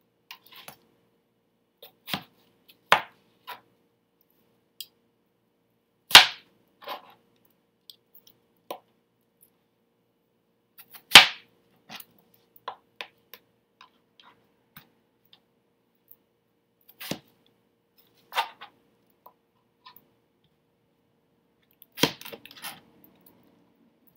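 Kitchen knife cutting cantaloupe into cubes, the blade knocking sharply on the cutting board at irregular intervals a second or more apart. The two loudest knocks come about six and eleven seconds in.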